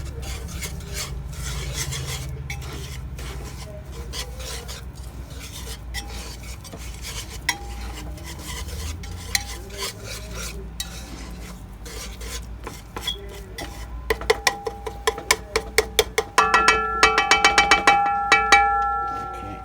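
A whisk stirring roux and oil in a pot, a steady rasping scrape. Near the end the whisking turns into rapid clattering strikes against the pot, which rings.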